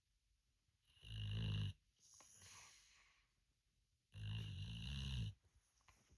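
Snoring in sleep: two long snores about three seconds apart, with a softer breath between them.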